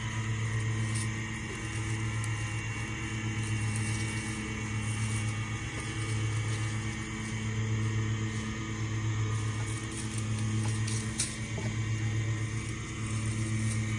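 An engine running steadily: a low, even drone that swells and eases slightly.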